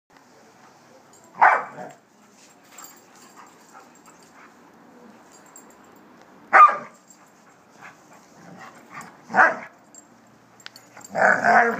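A dog barking during rough play with another dog: three single sharp barks a few seconds apart, then a quicker run of barks near the end.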